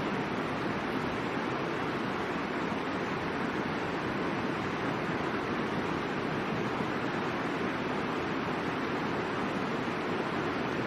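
Rushing river water, a steady, even noise from the Middle Fork of the Boise River.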